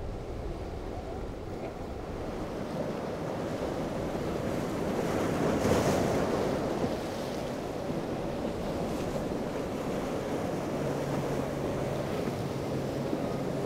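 Surf and choppy inlet water rushing, with wind on the microphone; the rush swells loudest about six seconds in. Near the end a steady low hum comes in from a Yamaha outboard as a Key West 186 center-console boat runs close through the waves.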